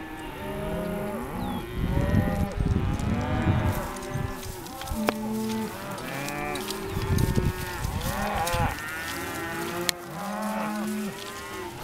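A herd of cattle being driven, many cows mooing at once, their calls overlapping one after another.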